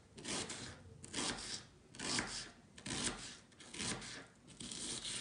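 Knife slicing a raw onion into thin half-moons on a wooden cutting board, each stroke a short crisp rasp through the onion onto the wood, about one slice a second.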